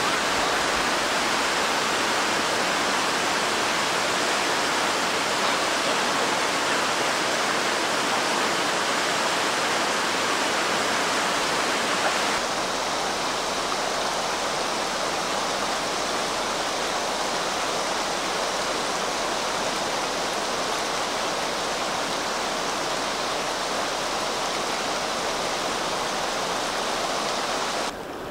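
Steady rush of river water pouring over a shallow weir or rapids. About twelve seconds in it turns slightly quieter and duller, a softer river flow.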